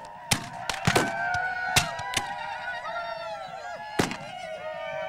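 Scattered musket shots, several in the first two seconds and one more about four seconds in, over many men yelling at once, their voices sliding up and down in pitch.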